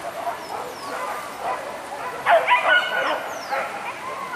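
Hunting dogs barking and yelping in a quick cluster around the middle, on a wild boar chase.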